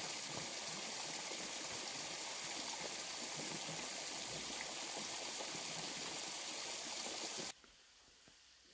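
Water rushing and churning steadily in a pool around a submerged T-shaped pipe outlet, a continuous flowing-water sound that cuts off suddenly near the end.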